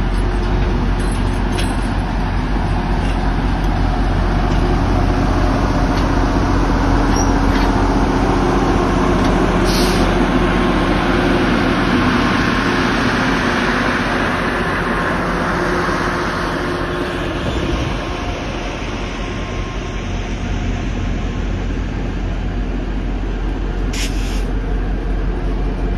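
Iowa Northern diesel locomotives passing slowly at close range, engines running steadily over the rolling of the train on the rails. The engine sound swells as the first locomotive goes by, eases, then builds again as the second approaches. Two brief sharp hisses or clicks come about ten seconds in and near the end.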